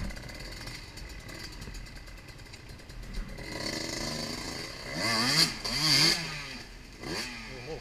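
Off-road motorcycle engine revving up and down in several quick bursts from about halfway in, after a quieter stretch of engine running. This is a trail bike being throttled through a muddy, root-strewn gully.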